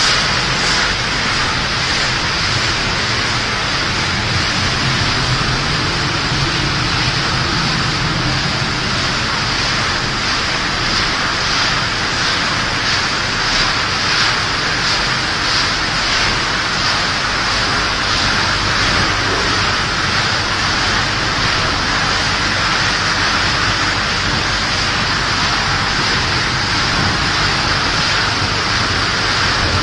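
Snack-food processing machinery running: a steady, even machine noise with a strong hiss, no distinct knocks or changes.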